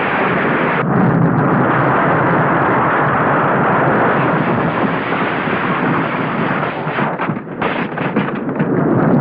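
Film sound effect of destruction: a loud, continuous rumble of blasts and crashing rubble, breaking into separate crashes near the end.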